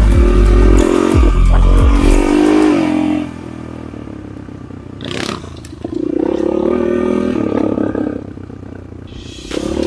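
Enduro motorcycle engine revving under throttle, then backing off after about three seconds and pulling up again around six seconds in, with wind buffeting the microphone while the bike is on the gas.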